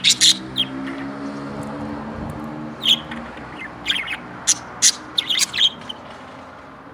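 Budgerigar chirping: short sharp chirps, a quick few at the start, one about three seconds in, then a busier run of them in the second half.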